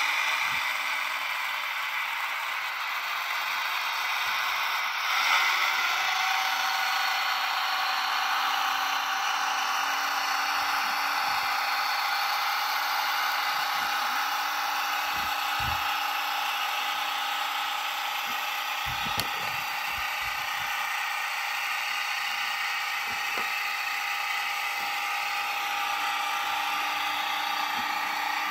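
Model Deltic diesel locomotive running slowly along the layout track, a steady mechanical whirring and clattering from its motor, gears and wheels, with a few light knocks partway through.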